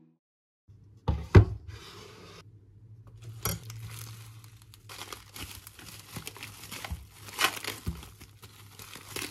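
Crinkling and rustling of something being handled, with a sharp knock about a second in, then steady crinkling with scattered light taps over a faint low hum.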